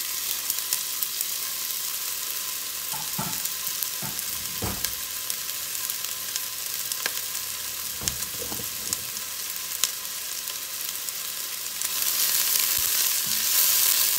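Diced onion sizzling and crackling in hot olive oil in an enamelled pot: a steady frying hiss with scattered pops. Near the end it gets louder as the onion is stirred with a spatula.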